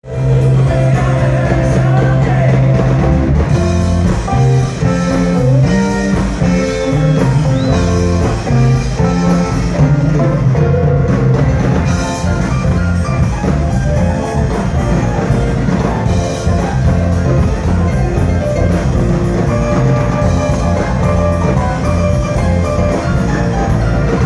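Live rock band playing loudly, with electric guitars, bass guitar, drum kit and keyboards.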